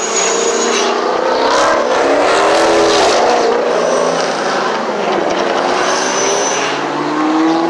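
Mirage volcano show erupting: a loud, continuous rumbling with tones sliding up and down, and gas flame jets firing in hissing bursts at the start and again around six seconds in.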